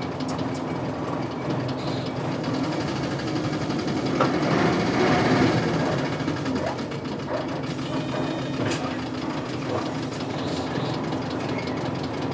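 Isuzu Cubic KC-LV380L bus's 8PE1 V8 diesel engine running at or near idle, swelling louder about halfway through, with a sharp click near the end. The idle is rough and uneven, which the uploader notes as a fault of this bus.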